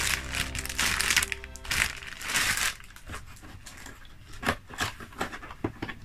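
Clear plastic packaging bag crinkling as it is handled, in several bursts over the first three seconds, then lighter rustles and clicks. Background music plays underneath.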